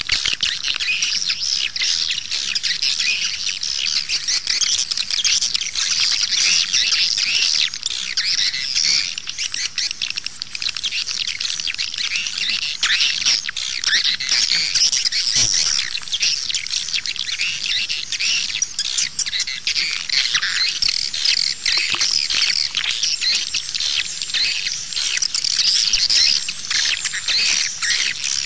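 Swiftlet lure call: a dense, unbroken chatter of many swiftlets' high chirps and twitters. This is the 'outside' call played at a swiftlet house to draw swiftlets in.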